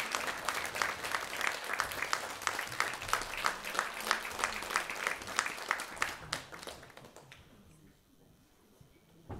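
Audience applauding in a concert hall. The applause thins to scattered claps and dies away about seven seconds in.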